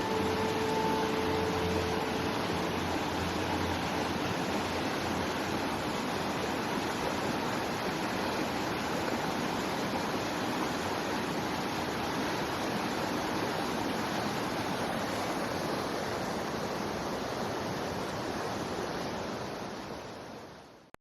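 Waterfall rushing: a steady, even roar of falling water that fades out over the last couple of seconds.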